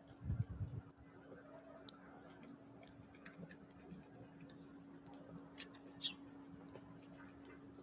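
Small wild birds pecking and tapping at a feeder: scattered light ticks, with a louder low thump about half a second in and a short high note about six seconds in, over a faint steady hum.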